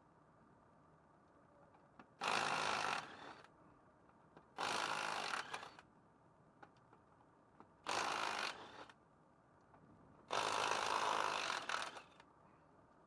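Power impact wrench running in four short bursts, each a second or so long, about every two and a half seconds: lug nuts being spun off a pickup's wheel.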